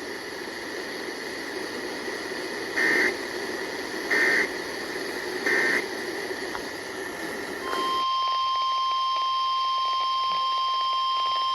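NOAA Weather Radio receiver: static hiss with three short bursts of SAME digital data tones about a second and a half apart, the end-of-message signal closing the previous warning. About two-thirds of the way in, a loud, steady 1050 Hz warning alarm tone starts, announcing the next warning.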